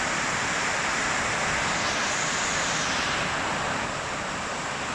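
Heavy rain falling, a steady, even hiss.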